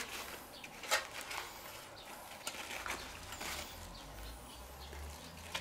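Paper towel in a stainless steel tray rustling and crinkling in a few brief bursts as a fried breaded schnitzel is lifted off it with tongs.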